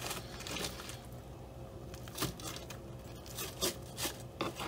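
A fork cutting and pulling apart a cheese-topped boneless chicken wing, with faint, irregular scrapes and taps of the fork against the pan.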